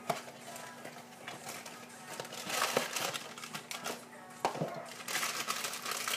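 Plastic bag of raisins crinkling and rustling as it is handled and opened, with a run of crackly clicks that gets busier in the last second or so.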